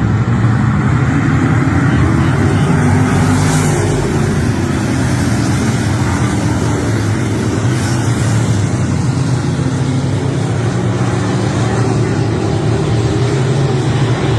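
Race car engine running steadily at speed, its pitch holding fairly even with only slight rises and falls.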